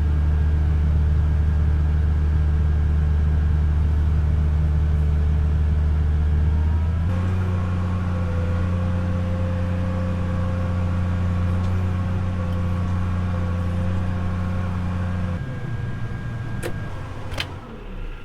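Tractor engine running steadily while pulling a field cultivator, its pitch stepping up about seven seconds in and dropping again about fifteen seconds in. Two sharp clicks near the end.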